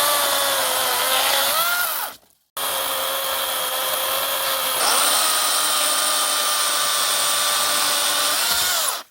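Skil 40-volt battery electric chainsaw cutting wood, a steady motor whine in two runs with a short break after about two seconds. Its pitch dips and recovers under load, and briefly rises before the motor stops near the end.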